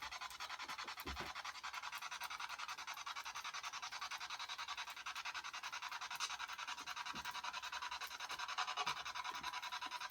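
Spirit box sweeping radio static: a rapid, evenly chopped hiss that runs on steadily while the device is listened to for an answer.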